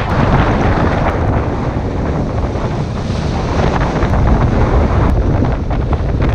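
Strong wind buffeting the microphone over the rushing of waves and spray along a sailing yacht's hull as it drives through rough seas, with a few short sharp splashes.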